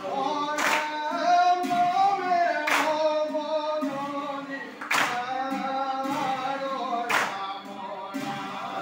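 Assamese Vaishnavite nam-prasanga: a seated congregation of men chanting a devotional song together in unison, held notes rising and falling. A sharp unison beat cuts through the chant about every two seconds.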